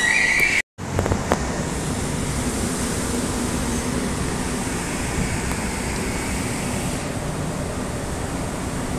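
A short high beep, then after a brief cut a few clicks, and then a Shanghai Mitsubishi J Series escalator running with a steady mechanical hum.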